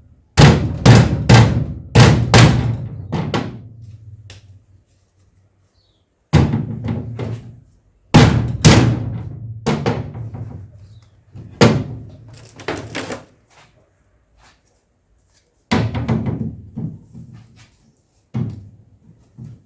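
A mallet striking plastic parts, seating them tightly together. The sharp knocks come in quick clusters of one to six blows, with pauses of a second or more between.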